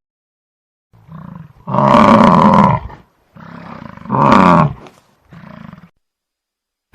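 Buffalo bellowing in a series of calls: two loud, drawn-out bellows about two and four seconds in, the second falling in pitch, with quieter calls between them.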